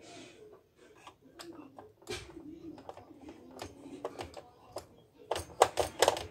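Screwdriver and plastic parts of an Epson inkjet printer's chassis clicking and knocking as a screw is undone, with a quick run of sharp clicks about five seconds in.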